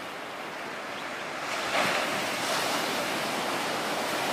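Surf washing onto a sandy beach, a steady rush of breaking waves that grows louder about a second and a half in.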